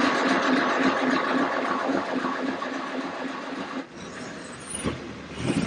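Austin Seven Ruby's 747 cc four-cylinder side-valve engine running just after being started, with a steady pulsing beat. It drops noticeably in loudness about four seconds in and keeps running more quietly.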